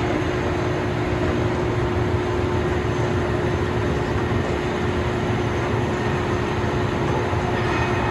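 Blanchard No. 20-36 rotary surface grinder running steadily: an even mechanical whir with a constant hum through it.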